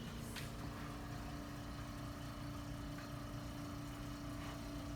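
A steady low mechanical hum with a steady pitched tone that starts right at the beginning, and a single faint click shortly after.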